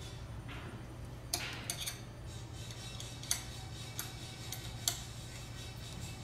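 Hex key clicking against metal as it is fitted into and turned in socket-head screws on a label applicator's tamp-head bracket: a handful of sharp, irregular metallic clicks.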